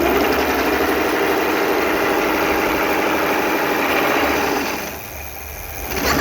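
BK-V9 electric bicycle's motor drive running under throttle with a loud mechanical noise, the noise the bike makes when accelerating and whose cause the owner doesn't know. It dies down about five seconds in and picks up again near the end.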